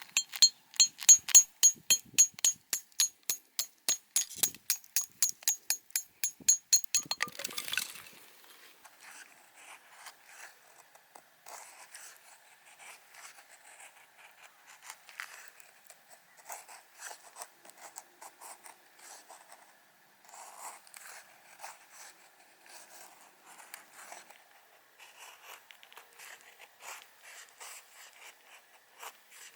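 A hand saw cutting wood in fast, even strokes, about four or five a second, with a metallic ring from the blade, stopping about seven seconds in. It is followed by softer, irregular scraping as a knife blade shaves wood.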